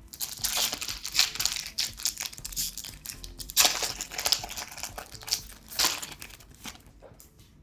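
Foil booster-pack wrapper crinkling and crackling in the hands as a Pokémon card pack is torn open, with a couple of louder crackles midway, tapering off near the end.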